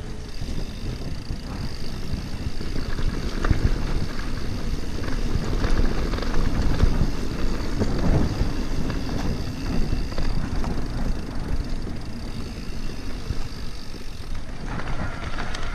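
E-mountain bike riding over a bumpy dirt and gravel trail: steady tyre rumble with scattered knocks and rattles from the bike over bumps, and wind buffeting the microphone.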